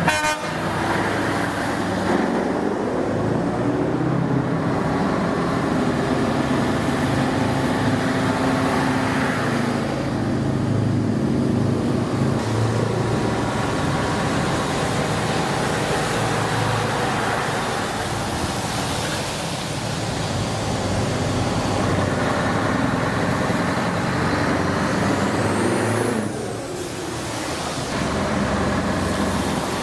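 Scania V8 truck engine running, its note shifting up and down. A thin whistle climbs in pitch about three quarters of the way through, then falls away.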